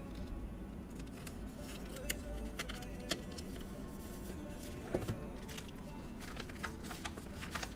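Paper and stickers being handled while decorating a card gift box: scattered light clicks and taps, with a louder knock about five seconds in.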